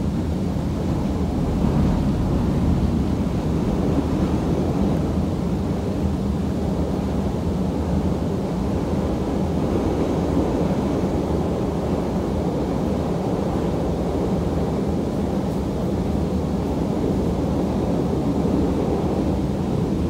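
Chicago CTA rapid-transit train running between stations, heard from inside the car: a steady low rumble.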